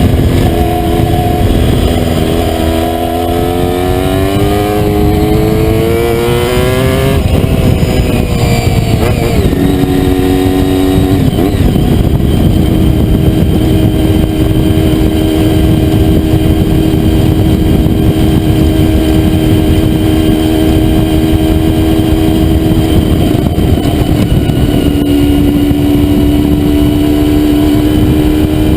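Honda VFR400R's V4 engine running: it climbs steadily in pitch for about seven seconds, drops sharply, then settles and holds a steady engine speed for the rest, dipping slightly in pitch near the end.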